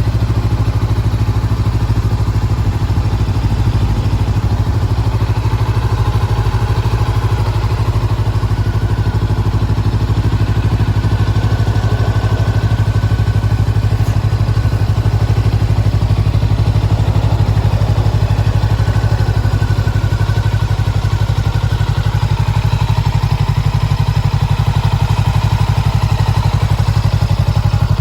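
Honda CBR400R's 399 cc parallel-twin engine idling steadily, exhausting through an aftermarket Moriwaki silencer.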